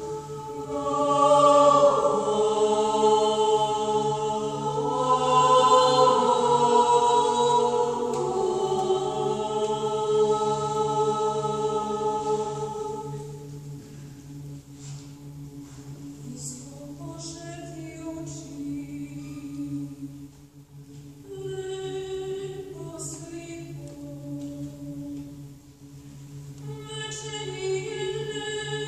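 Mixed choir singing sustained chords in harmony without accompaniment, over a low held drone note. The sound is full and loud for the first dozen seconds, then drops to a softer, thinner passage with fewer voices.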